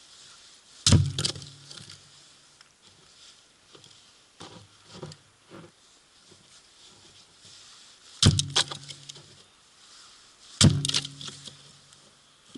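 Firewood being worked: three sharp, loud wooden knocks, the first about a second in and the other two near the end, each ringing briefly with a hollow pitched tone, with lighter clattering knocks between them.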